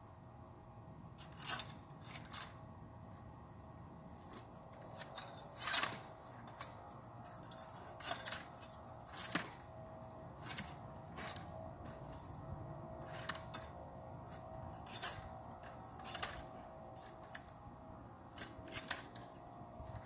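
Hand pruning shears snipping twigs and small branches: sharp single snips at irregular intervals, about one every second or so, the loudest about six seconds in.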